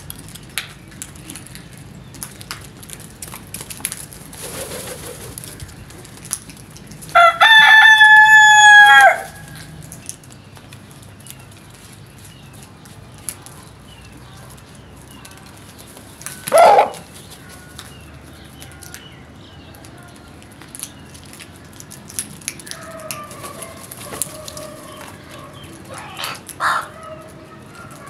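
A rooster crows once, a loud drawn-out call of about two seconds. A shorter loud bird call comes several seconds later, then softer calls and scattered faint chirps.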